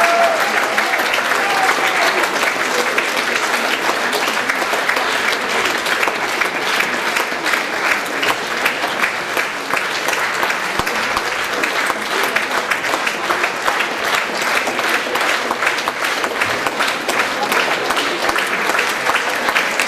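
Audience applauding steadily, a dense even clapping, with a few short voices calling out over it near the start.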